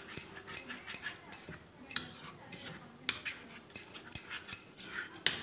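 A hand mixing thick semolina batter in a plastic bowl: wet squelching strokes, each with a sharp click, about two a second.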